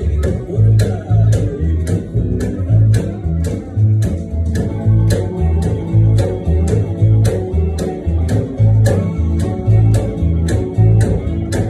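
Acoustic upright bass plucked in a bouncing country two-beat line, its low notes alternating on a steady beat, over a band with guitar and a steady beat of sharp clicks.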